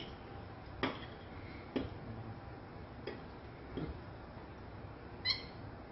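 A few soft clicks and knocks from hands and food against a glass bowl, then, near the end, one brief high squeak from a capuchin monkey.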